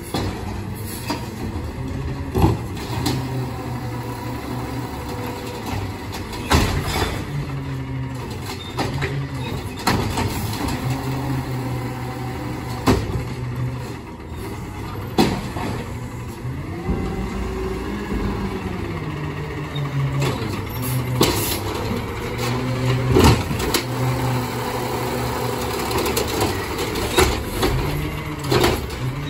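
Peterbilt 520 automated side-loader garbage truck's engine running and revving up and down in slow swells as the hydraulic arm works, with sharp clanks and bangs several times from the arm and the recycling carts.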